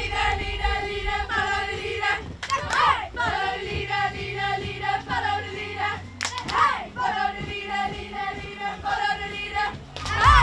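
Music with a group of voices singing together.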